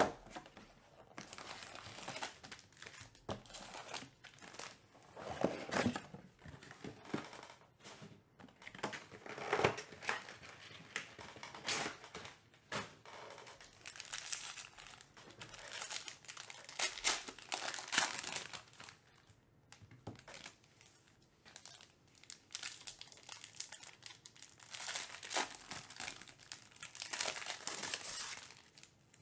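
Foil trading-card pack wrappers being torn open and crinkled by hand: an irregular crackling rustle that comes and goes throughout.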